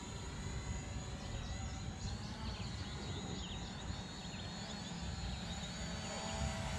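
Hubsan Zino quadcopter drone's propellers whining steadily as it hovers and descends toward the pilot, a steady multi-tone hum. A few short high chirps come through between about one and a half and three and a half seconds in.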